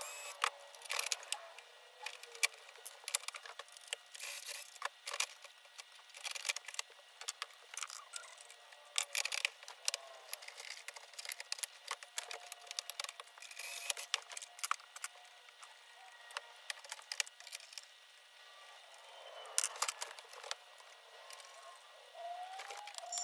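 Fast-forwarded workshop handling noise: a rapid, irregular clatter of clicks and knocks from hand tools and the covers and parts of a Pfaff Performance Icon sewing machine being serviced, thin with no low sounds.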